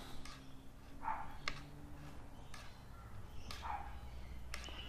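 A dog barks twice, about a second in and again near four seconds, with a few light clicks from thin wires being twisted by hand.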